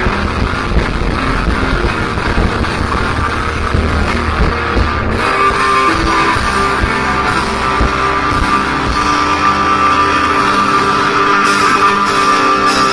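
Live alternative indie rock band playing, with electric guitars, bass guitar and drums. About five seconds in the bass and drums thin out and sustained guitar notes ring on.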